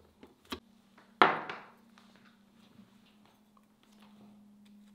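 Tableware being handled on a table: a few small clicks, then one sharp knock about a second in that rings out briefly, over a faint steady hum.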